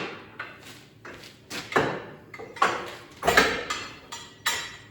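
A series of sharp clunks and knocks at irregular intervals, about ten in all, each dying away quickly: hard parts and tools being handled while an engine is worked into its mounts.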